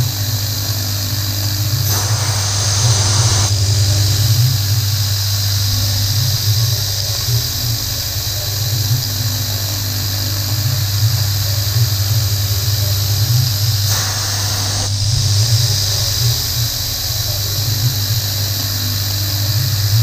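PM30-MV milling machine cutting a metal part with an end mill under flood coolant: a steady spindle hum with a high-pitched whine from the cut, over the hiss and splash of coolant. Twice, about two seconds in and again near fourteen seconds, the hiss briefly gets louder.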